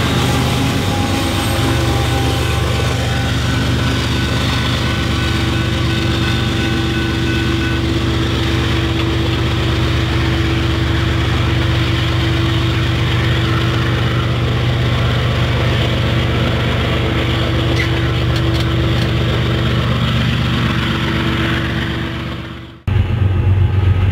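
GE ES44AC diesel-electric locomotive engines (GEVO V12) running with a steady low drone over the rumble of a loaded coal train. The sound cuts off suddenly just before the end, giving way to another low locomotive rumble.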